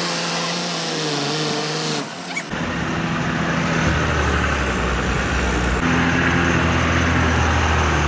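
A heavy vehicle's engine running, its pitch wavering up and down at first; after a cut about two and a half seconds in, a deeper, steady engine sound with rough noise over it.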